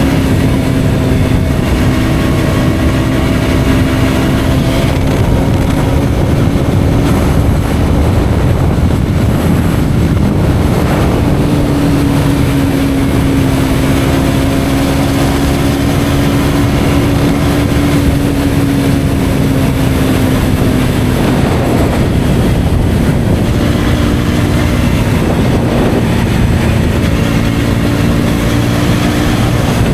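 KTM Duke 125's single-cylinder four-stroke engine running through an Akrapovic exhaust at fairly steady cruising revs. The pitch rises a little partway through and eases back down.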